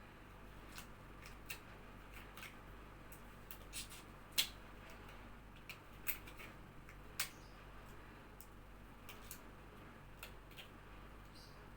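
Scattered light clicks and taps of equipment being handled and set out, irregularly spaced, the sharpest about four and a half seconds in.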